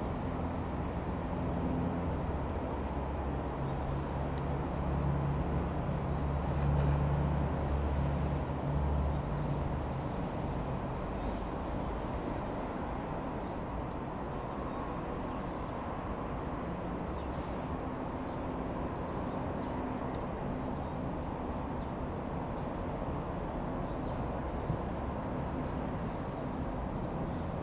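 Piper PA-28-180 Cherokee's four-cylinder Lycoming piston engine and propeller droning steadily as it flies overhead, a little louder about a quarter of the way in and then easing off. Faint bird chirps come and go.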